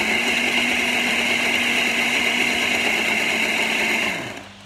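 Countertop blender with a glass jug running steadily, blending a smoothie of banana, crackers and condensed milk. The motor is switched off about four seconds in, its pitch falling as it spins down.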